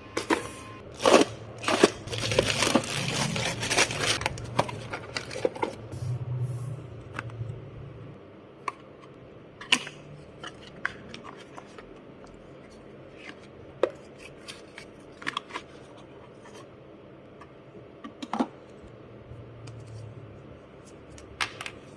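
Packaging being opened by hand: crinkling, tearing and rustling with a few sharp clicks, for about the first eight seconds. After that only scattered single clicks and taps as the box and its contents are handled.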